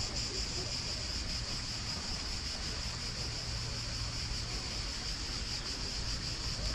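Steady, high insect chorus shrilling without a break, with a low steady rumble underneath.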